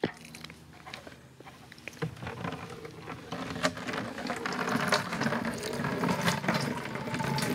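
Water driven by a foot-operated bulb siphon pump pouring from a PVC spout into a plastic bucket sink and splashing. It starts faint and grows louder over the first couple of seconds, with a few sharp clicks along the way.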